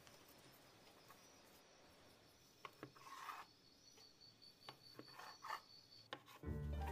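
Faint scraping and light taps of a kitchen knife cutting through soft rolled dough on a wooden board, with a short rub about three seconds in. Music starts near the end.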